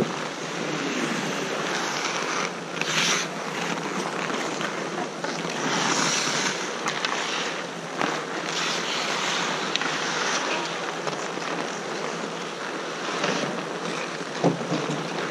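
Hockey skates scraping and carving across outdoor rink ice, a steady hiss, with a few sharp clacks of sticks and puck, one about halfway and another near the end.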